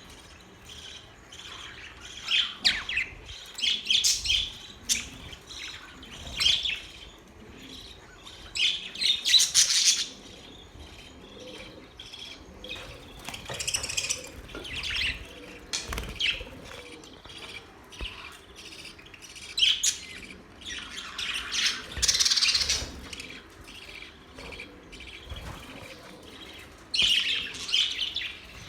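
Budgerigars chirping in bursts, the chatter swelling into louder spells every few seconds.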